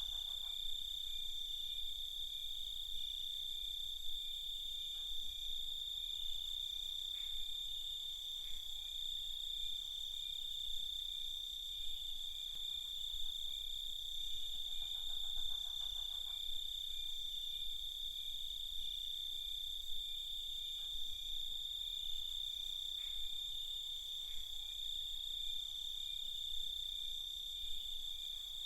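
Night chorus of crickets: a continuous high-pitched trill. About fifteen seconds in, a second, lower call with rapid pulses joins briefly.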